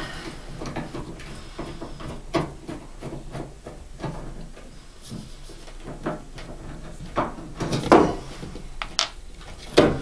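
Screwdriver turning out a fixing screw from a washing machine's mains input filter, with scattered short clicks and knocks of metal and plastic as the part is worked loose. The loudest knocks come about eight seconds in and again near the end.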